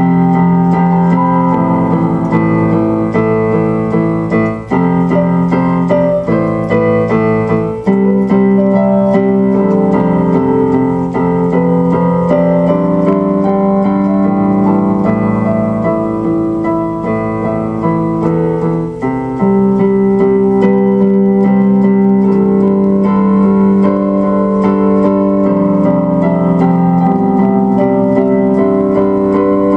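Keyboard music: slow instrumental piece played on an electronic keyboard, held chords under a melody, the chords changing every few seconds.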